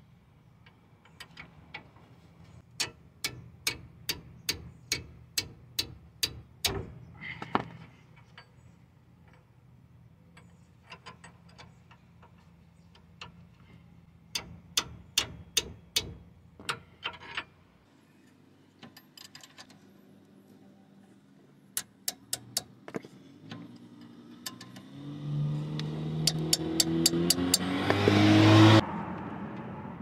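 A ratcheting wrench clicks in quick runs, about three or four clicks a second, as the hub-assembly bolts are run in by hand. Near the end, a cordless ratchet's motor runs for about three seconds, rising in pitch as the bolt tightens, then cuts off sharply.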